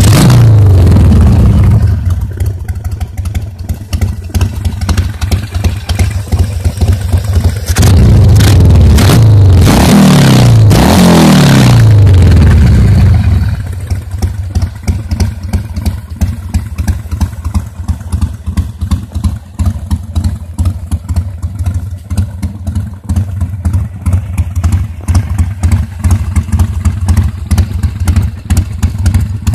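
Harley-Davidson Sportster 1200 Seventy-Two's V-twin with a Screamin' Eagle engine kit, running loud through its exhaust: it drops back from a rev to idle, is revved several times in quick succession about eight seconds in, then settles into a steady, uneven idle.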